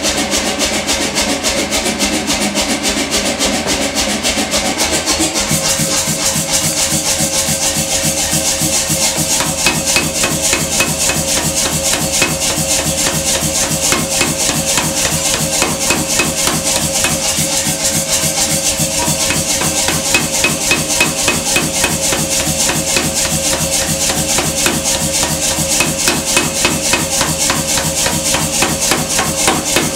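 Belt-driven Beche power hammer running, its ram striking a red-hot steel bar in rapid, even blows, over a steady hum from the machine.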